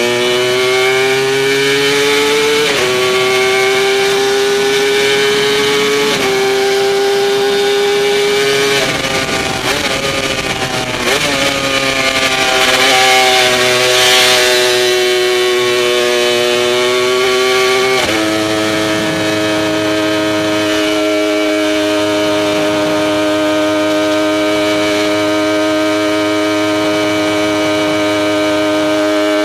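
Works Kawasaki KR750 three-cylinder two-stroke racing engine under way, heard from on board: the revs climb and drop back at gear changes about three seconds apart, then ease off and run unevenly for a few seconds, and from about two-thirds of the way through hold a steady, lower pitch.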